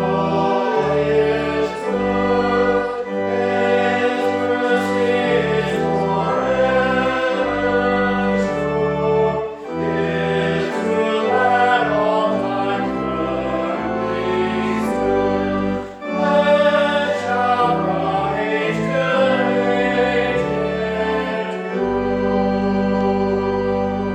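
A church hymn: voices singing in parts over organ accompaniment, with a moving bass line. Near the end it settles onto a long held organ chord.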